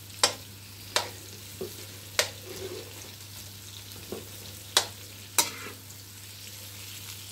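Onions and sweet paprika sizzling in oil in a non-stick wok while a metal spoon stirs them, the spoon knocking sharply against the pan about five times.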